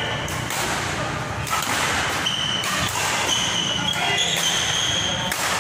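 Badminton rally: court shoes squeaking in short high squeaks on the court floor as the players move and lunge, with sharp racket hits on the shuttlecock. Voices chatter in the background.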